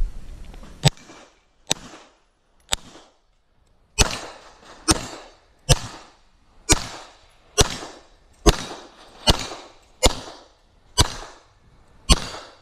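A CZ P-10 C pistol firing a string of single shots on a practical shooting stage: three shots about a second apart, a short pause, then about ten more at a steady pace of about one a second, each crack trailed by echo.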